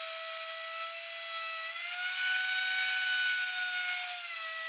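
Plunge router running and cutting through phenolic-resin-coated plywood, a steady high whine with hiss. Its pitch rises slightly about two seconds in and drops back near the end.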